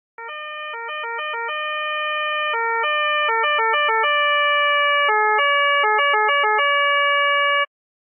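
Austrian police two-tone siren switching between a low and a high note, sometimes in quick flurries of short notes, sometimes holding the high note for about a second. It grows steadily louder and cuts off suddenly near the end.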